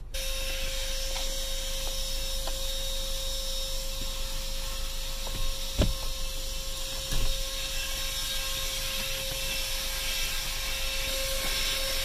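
ThisWorx 106 W handheld car vacuum running with a steady whine and suction rush as its hose nozzle is worked over interior trim. There are two short knocks near the middle.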